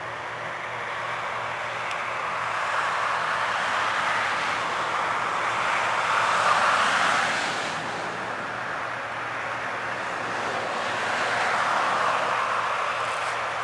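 Massey Ferguson 8570 rotary combine running as it harvests corn: a steady mechanical din that swells and fades, loudest about six and a half seconds in and again near the end.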